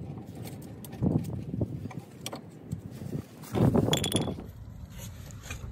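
Metallic clatter and knocking of rear drum brake parts, the shoes and springs on a Honda CRX Si's backing plate, being handled and fitted. It comes in two short bursts, about a second in and again around three and a half seconds in, the second with a brief metallic ring.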